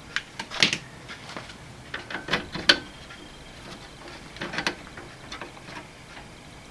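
Light metallic clicks and rattles in a few short clusters, from the handbrake cable's clevis and lever at a Classic Mini's rear drum brake backplate being worked loose by hand.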